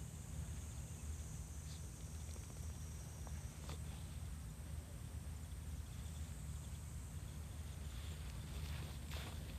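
Outdoor ambience on a summer hillside: a steady high-pitched insect drone over a low rumble, with a few faint ticks.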